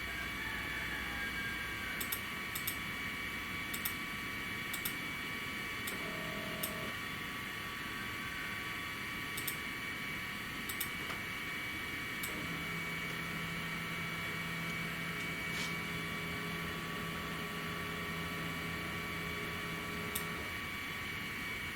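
Steady fan hum with scattered sharp clicks, like computer mouse clicks, while a CNC job is set up in software. A low steady tone comes in about twelve seconds in and stops about eight seconds later.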